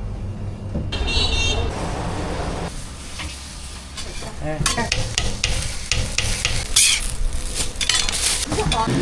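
Breakfast-stall cooking: food sizzling in hot oil, with utensils scraping and clinking against pans. The sound changes abruptly a few times, with a run of sharp clicks and knocks in the second half.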